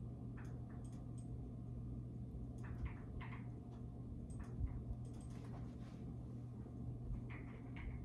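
Quiet room tone with a steady low hum, broken by scattered faint light clicks and short soft squeaks.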